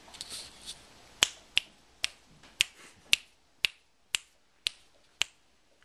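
Fingers snapping over and over, about nine sharp snaps at roughly two a second, to draw a dog's attention, after a brief rustle at the start.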